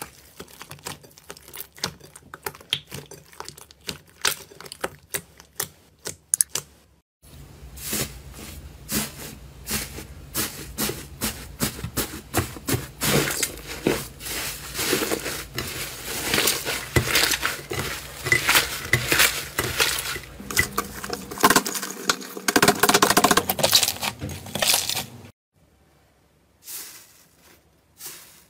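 Hands squeezing slime in a glass bowl: a quieter run of wet clicks and pops first, then after a cut about seven seconds in, a dense, louder crackling and crunching as a purple slime with a dried crust is kneaded and broken up. The crackling drops off sharply near the end, leaving fainter pressing sounds.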